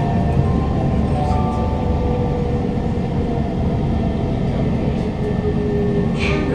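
Kawasaki Heavy Industries C151 train, GTO-VVVF variant, running on the track with a steady rumble, its traction motor whine stepping down in pitch as the train slows into a station. A brief hiss comes near the end.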